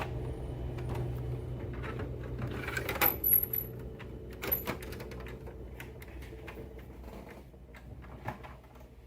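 HP Smart Tank 617 inkjet printer running a copy job: a steady low motor hum with scattered clicks and clacks from its paper-feed and carriage mechanism, the hum fading away over the last few seconds.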